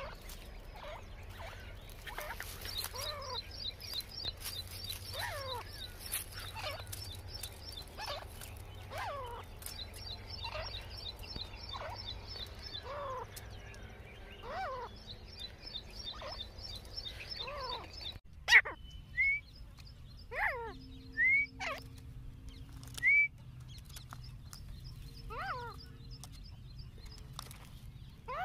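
Grey francolins calling: a run of repeated calls about once a second, each sliding down in pitch, over a faint high rapid trill. About two-thirds of the way in the recording changes to louder, spaced-out calls with short rising notes.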